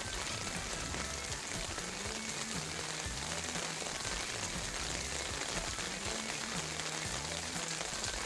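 Heavy rain falling steadily on garden leaves, an even hiss with no breaks. Faint low tones slide up and down underneath it.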